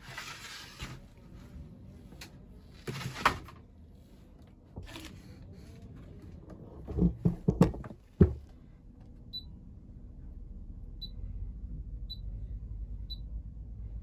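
Clothes rustling as they are pushed into a condenser tumble dryer's drum, then the plastic door shut with a cluster of thumps and latch clicks. Then four short high beeps from the dryer's control panel as the programme dial is turned, over a low steady hum.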